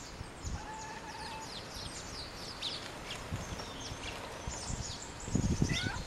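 A flock of small songbirds chirping all at once, a dense chatter of many short, high calls overlapping. A few low thumps come in near the end.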